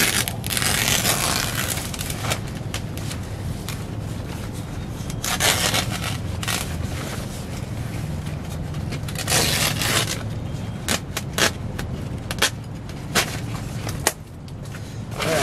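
3-mil plastic sheeting crinkling and rustling in several bursts as it is handled, with a few sharp clicks near the end, over a steady low wind rumble on the microphone.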